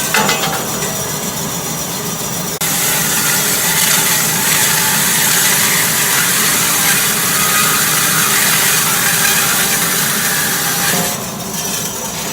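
Horizontal metal-cutting band saw running, its blade sawing through metal stock with a steady grinding hiss over the motor's hum. The sound jumps louder a little under three seconds in and eases off about eleven seconds in.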